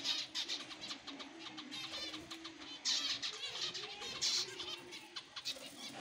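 Cage finches chirping: many short, high calls overlapping, with louder clusters about three and four seconds in.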